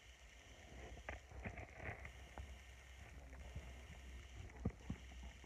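Faint rubbing and a few soft knocks of a hand handling a phone close to its microphone, over a low steady hum; the sharpest knock comes near the end.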